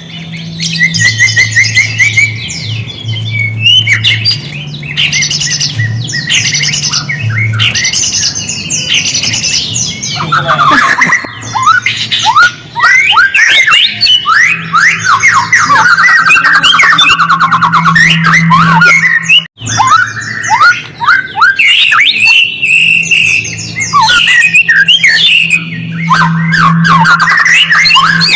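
A songbird singing a dense, fast run of chattering phrases, trills and sweeping whistles, over a steady low hum. It is a lure recording of the kind played to set white-rumped shamas singing.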